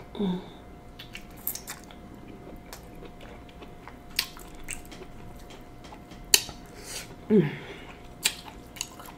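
Close-up eating sounds: king crab leg shell clicking and cracking as it is bitten and the meat is picked out with a fork, with wet chewing in between. A few sharp clicks stand out, the loudest about six seconds in, and there are two short voice sounds, one at the start and one about seven seconds in.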